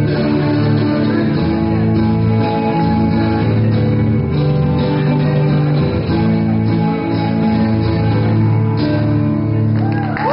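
Live band playing loud held chords on electric lead guitar and acoustic rhythm guitar over a drum kit.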